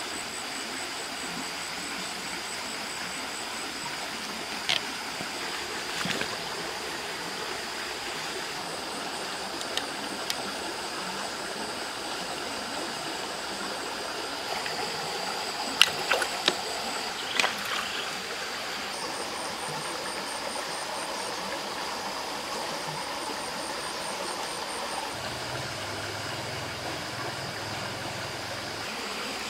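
Steady running water of a shallow stream, with a few sharp clicks and taps from bamboo sticks and line being handled, the loudest about halfway through. A steady high-pitched tone and short runs of fast high ticking sit above the water.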